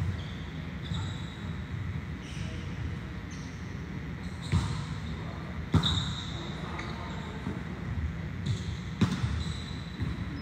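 Volleyballs being struck and landing during serve-receive drills: scattered sharp slaps of ball contact and ball on floor, three hits standing out about halfway through and near the end. Short high squeaks are heard between them.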